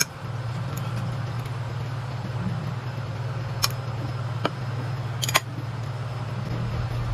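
Metal fork clinking against ceramic plates and bowls, a few sharp clicks in the second half, over a steady low hum.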